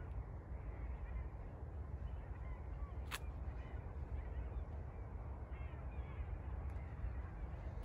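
Lakeside night ambience: a steady low rumble under a few faint, short bird calls, with a single sharp click about three seconds in.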